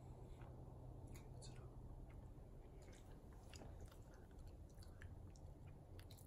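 Faint chewing of chocolate: soft, scattered little mouth clicks and smacks over a low steady room hum.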